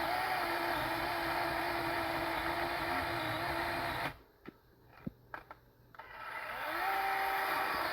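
A motor's steady hum cuts out suddenly about four seconds in, leaving a few faint clicks. About two seconds later it spins back up, rising in pitch to a steady hum again.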